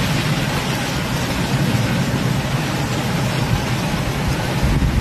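Heavy storm rain falling hard in strong wind: a steady hiss, with a low rumble of wind buffeting the microphone.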